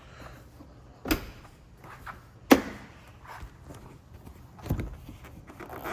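A few clunks and knocks from the car being handled, three in all, the sharpest about two and a half seconds in.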